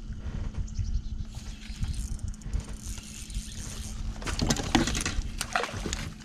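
A bass being played close to the boat, over a low rumble and a steady low hum. From about four seconds in comes a flurry of sharp splashing noises as the fish thrashes at the surface just before netting.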